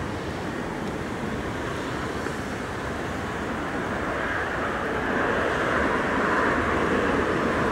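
Škoda-built ChS7 DC electric locomotive hauling a passenger train as it approaches: a steady rumble of the train running on the rails, growing louder about halfway through as it draws near.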